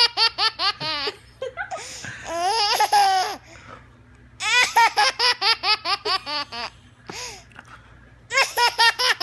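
Baby laughing hard in bouts of quick, high-pitched belly laughs: one at the start, a drawn-out squealing laugh around two to three seconds in, another string of rapid laughs about halfway, and a fresh bout near the end.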